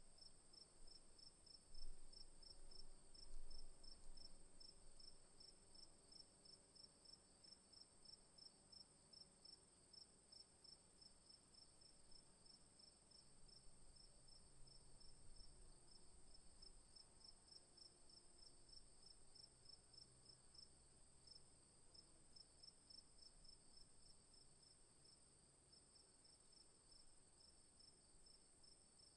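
Faint chorus of crickets: one insect keeps up a steady high trill while another chirps in an even, rapid pulse just below it. A couple of low rumbles come in about two and three and a half seconds in.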